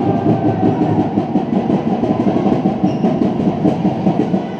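Loud, dense, echoing crowd noise in a sports hall during a handball game, with many voices and clapping blending together. Short knocks from ball bounces and footsteps on the court run through it.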